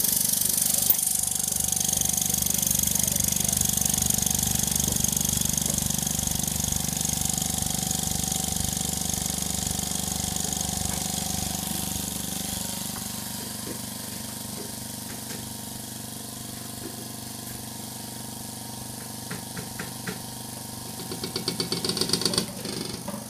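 OCA vacuum lamination machine's vacuum pump running just after being switched on, a steady hum with a high hiss that gradually grows quieter. Near the end a fast pulsing rattle builds up.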